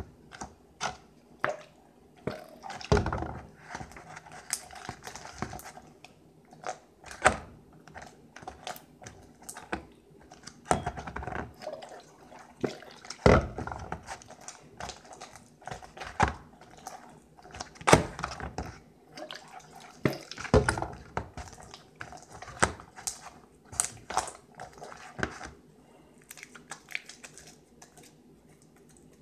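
Hands kneading and stretching sticky glue slime in a plastic bowl: irregular wet squelches, pops and clicks, with a few heavier thumps, dying away near the end.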